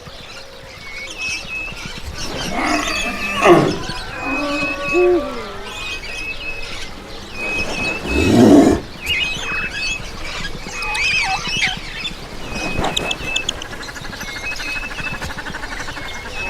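Animal calls: a bird's short high chirps repeating at one pitch throughout, with louder, deeper calls from larger animals about three and a half and eight and a half seconds in, the second the loudest.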